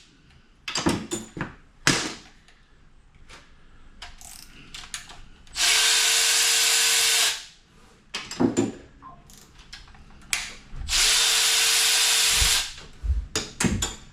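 A handheld power driver runs twice for about a second and a half each time, spinning out bolts, most likely those holding the oil pump on an LS V8 block. Between the runs come short metallic clinks and knocks as the loosened bolts and parts are handled.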